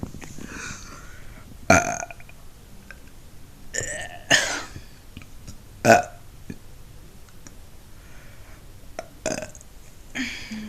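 A woman burping several times in a row: about six short burps, spaced one to three seconds apart.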